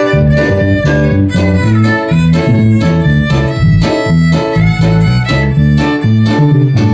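Live band music led by a violin playing the melody over a bass line that alternates between notes on a steady beat of about two a second.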